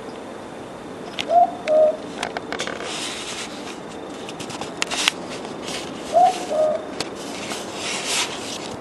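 Boobook owl (mopoke) calling its two-note "boo-book", the second note lower than the first. It calls twice, about five seconds apart, over scattered faint clicks and crackle.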